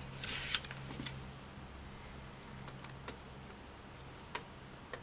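Light handling rustle, then a few scattered small clicks as a screwdriver is tried against the screws of a plastic push-button wall telephone, over a steady faint low hum.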